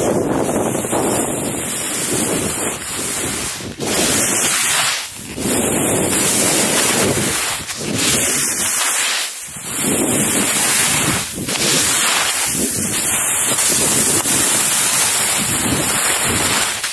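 Skis hissing and scraping over soft snow at speed, with wind buffeting the microphone; the noise swells and dips every second or two.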